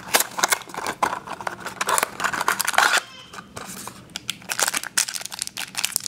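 A small cardboard blind box being torn open, then a foil pouch crinkled in the hands, with irregular tearing and rustling. The tearing is densest in the first half, with crinkling after a short lull.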